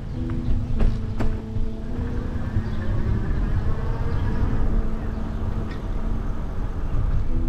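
Motor vehicle traffic over a heavy, steady low rumble, with an engine hum that comes and goes and two sharp clicks about a second in.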